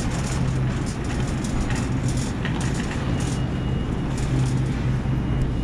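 Shopping cart rolling along a hard store floor: a steady rattling rumble from the wheels and wire basket, over a low constant hum.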